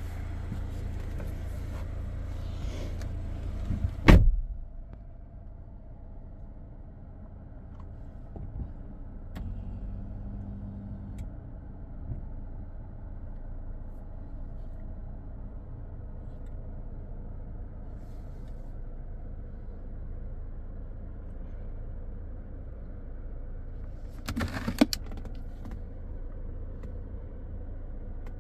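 Low steady hum of a 2024 Chery Tiggo 8 Pro Max idling, heard from inside the cabin. A loud thump about four seconds in, after which the hum is quieter, and a short cluster of clicks and knocks about 24 seconds in.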